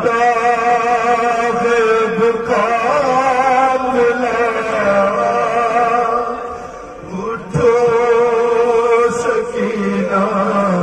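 A man chanting a noha, an Urdu mourning elegy, into a microphone in long held notes with a wavering pitch. He dips briefly about seven seconds in, then comes back in strongly.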